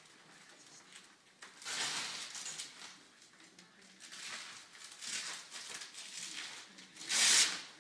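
Fabric rustling and rubbing as a patient-lift sling and clothing are tugged and adjusted on a therapy bed, in several separate rustles, the loudest near the end.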